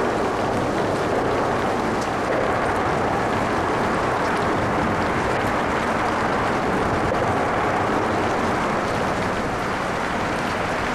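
Steady wash of freeway traffic noise mixed with light rain pattering.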